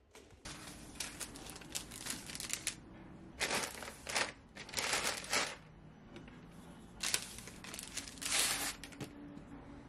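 A plastic carrier bag and the paper bakery bag inside it crinkling and rustling as they are handled, in about five separate bursts.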